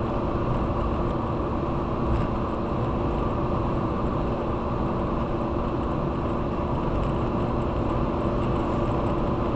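Steady road noise and engine hum of a moving road vehicle.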